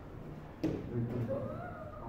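Kendo practice: a single sharp thud about two-thirds of a second in, then a drawn-out voice that rises in pitch.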